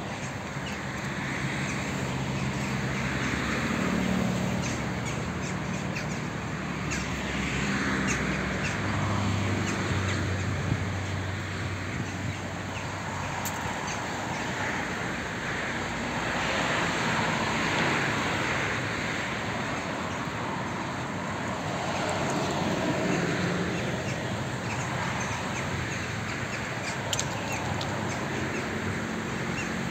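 Outdoor background noise: a steady wash that swells and fades every few seconds, with a low hum in the first third and a few faint clicks.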